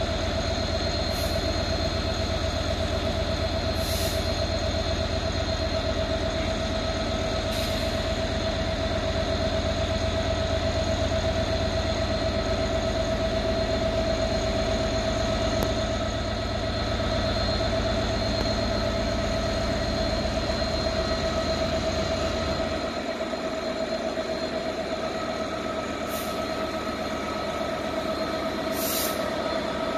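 Diesel freight locomotive with container wagons, its engine running with a deep rumble and a steady high whine over it as it moves slowly through. The low rumble drops away about two-thirds of the way through.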